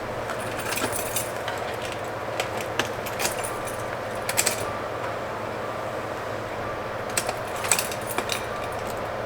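Small clicks and light rattles from handling a car fuse box, a spare fuse being fitted into the slot of a blown one, in scattered clusters with the loudest about 4.5 and 8 seconds in.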